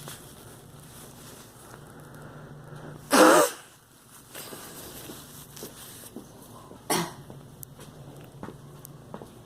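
A girl coughing: one loud cough about three seconds in, then a shorter, weaker cough near seven seconds.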